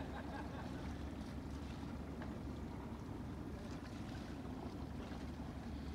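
Beta 50 hp inboard diesel of a gaff-rigged smack yacht running steadily at low revs as the boat motors off its berth, a low, even hum.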